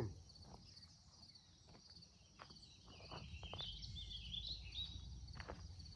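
Faint outdoor ambience: small birds chirping high and quick, busiest around the middle, over a low rumble, with a scatter of light clicks.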